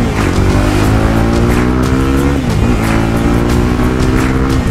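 TVS Apache RR310's single-cylinder engine through an Akrapovic-style slip-on exhaust fitted with a dB killer, accelerating hard through the gears. The revs climb, fall away at an upshift about halfway through, then climb again to another shift at the end. The exhaust note is smooth and not very loud with the dB killer in.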